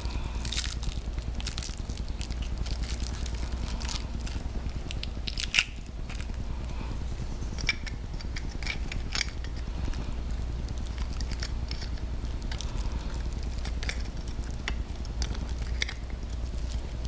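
Scattered small clicks and crackles of hands handling turn-signal parts, over a steady low hum; one sharper click about five and a half seconds in.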